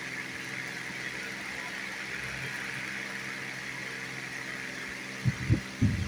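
Steady low mechanical hum with a faint hiss behind it. A few dull low thumps come in near the end.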